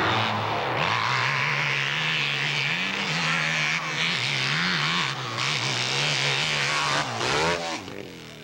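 Hillclimb motorcycle engine at full throttle on a dirt climb. Its note wavers up and down throughout, swings sharply near the end, then drops away.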